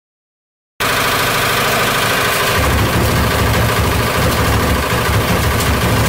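Front-loading washing machine running with a house brick in its drum: a rapid, loud rattle of the brick hammering round inside, the whole machine shaking and thudding as it rocks. A heavy low rumble builds about two and a half seconds in. It starts after a short silence.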